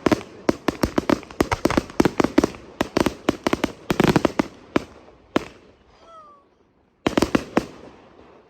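Fireworks exploding in a rapid string of sharp bangs for about five seconds, thinning out. After a brief gap, a second short burst of bangs follows.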